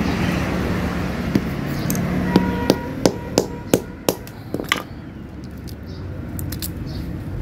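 A hammer strikes a small cement-filled plastic capacitor casing on a concrete floor: a series of about eight sharp knocks, a few per second, as the casing cracks apart. A steady low engine-like hum runs underneath at first.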